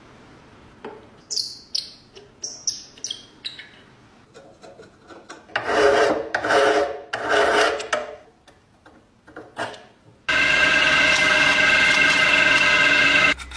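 Short scraping clicks, then a few loud strokes of a metal file rasping over the rusty handle bracket of an old cast-iron flat iron. About ten seconds in, a drill press starts up and runs at a steady pitch as its bit bores into the iron's cast-iron body, then stops just before the end.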